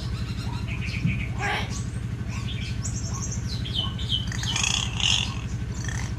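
Hill myna calling: a string of short high whistles and squawky chirps, busiest in the second half, over a steady low hum.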